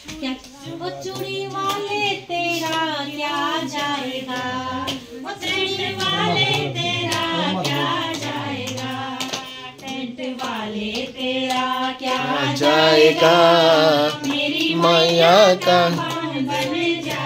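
A group of women singing a devotional bhajan together, with hand claps keeping the beat. The singing grows louder in the second half.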